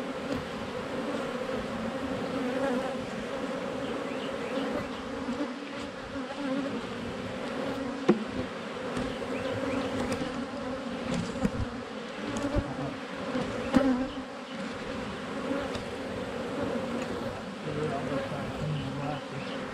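Honeybees buzzing around an open hive: a steady, dense hum of many bees in the air. A couple of short knocks come about eight seconds in and again near fourteen seconds.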